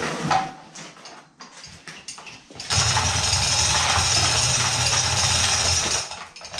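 A small motor-driven tool runs steadily for about three seconds, starting suddenly a little under three seconds in and cutting off near the end. Before it come light knocks and clinks of metal parts being handled.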